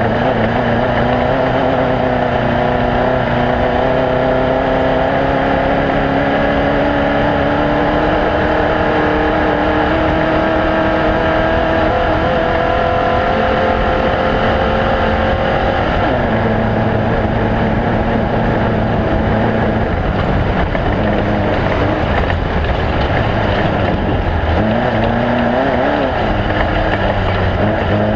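Off-road race vehicle's engine running hard over dense mechanical and wind rumble. Its pitch climbs slowly for about sixteen seconds, then changes, and near the end the revs rise and fall.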